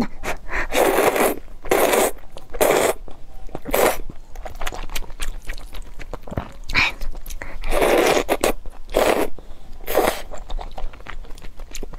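Spicy instant fire noodles slurped up from chopsticks, close to the microphone: a string of short, noisy slurps at uneven intervals, with wet chewing between them.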